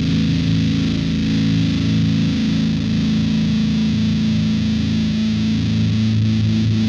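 Electric guitar played through a LARAN fuzz pedal, a MOSFET-input muff-style fuzz: low notes held and ringing with heavy, thick distortion.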